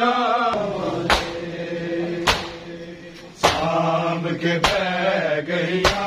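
A noha (Shia mourning lament) chanted by male voices over rhythmic matam: a crowd of men striking their bare chests in unison, one sharp slap a little more often than once a second.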